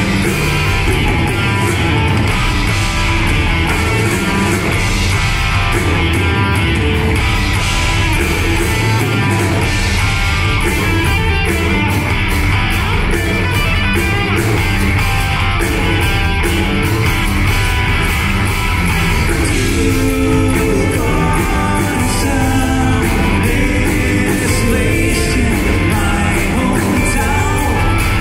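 Progressive rock band playing live, with electric guitars, bass, keyboards and drums and a sung vocal, heard from the audience in a theatre.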